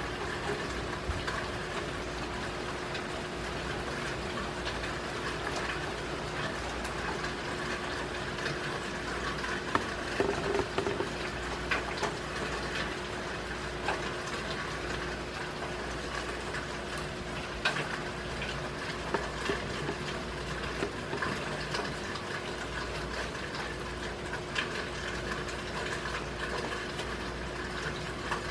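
Steady rain falling during a thunderstorm, with scattered sharp taps of drops striking close by, a small cluster of them about ten seconds in.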